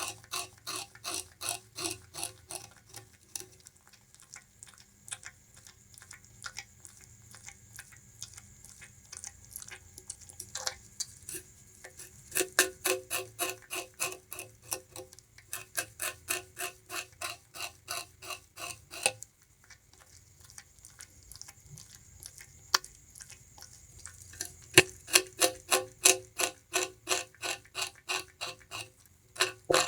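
Bamboo rat gnawing and chewing sugarcane: rapid crisp crunching bites, about four or five a second, coming in runs with short pauses.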